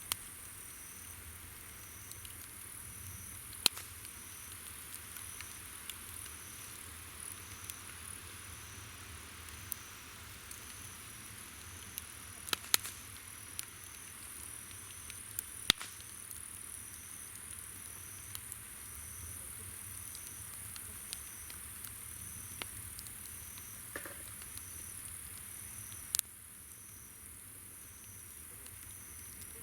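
Wood campfire crackling with scattered sharp pops, the loudest about 4, 13, 16 and 26 seconds in. Under it, summer insects call: a steady high trill and a chirp pulsing about once a second.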